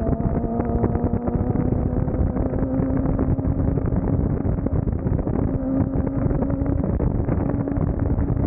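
Suzuki GSX-R750's inline-four engine running under way at a steady pace, its pitch climbing slowly, with wind rushing over the microphone.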